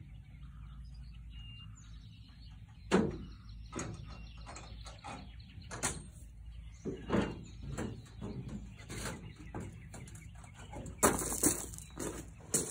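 Scattered metal knocks and clanks from a man climbing about on a steel truck flatbed and handling the parts of a homemade truck crane, over a low steady hum. Near the end comes a quick run of louder, crisper knocks.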